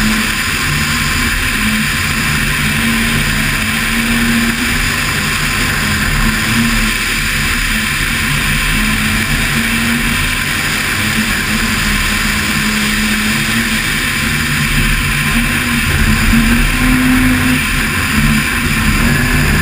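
Toyota Starlet rally car at speed on a snow-covered stage: the engine runs hard at a fairly steady pitch that shifts a little as the throttle changes, over a constant rush of road and wind noise.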